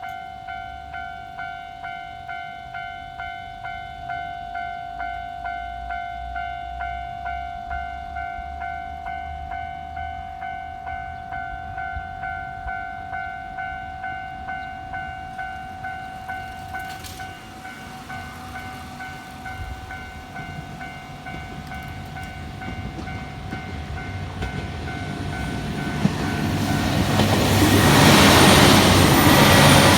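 Japanese level-crossing warning bell ringing with a steady repeating 'kan-kan' about twice a second, while a train approaches and passes the crossing. The train's run-by grows to its loudest near the end, over the bell.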